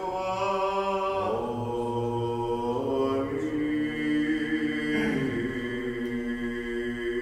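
Unaccompanied male voices in Byzantine liturgical chant, a slow melody of long held notes that change pitch every second or two.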